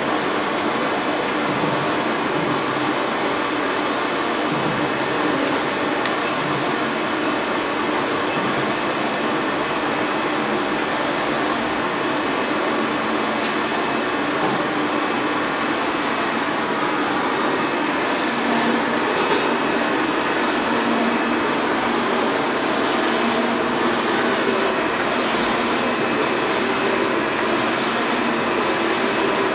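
UV flatbed printer running as it prints a large plastic sheet: a steady, loud mechanical noise from the print-head carriage and its UV curing lamp unit, pulsing about once a second as the carriage sweeps back and forth.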